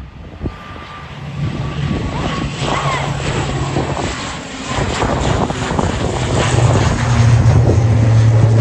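Airliner engines running: a steady low drone that grows louder as the aircraft comes closer, loudest near the end.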